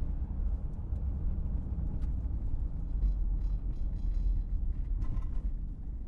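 A car driving along a road, heard from inside the cabin: a steady low rumble of tyres and engine, with a few faint light ticks.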